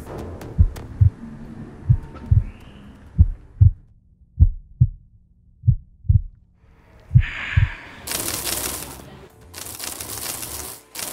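Heartbeat sound effect: low double thumps, lub-dub, coming about every 1.2 to 1.5 seconds. About eight seconds in, the thumps give way to a loud rushing hiss that breaks off briefly and starts again.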